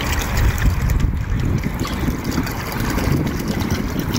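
Hot water poured in a thin stream from a kettle into a plastic bucket, over a steady low rumble.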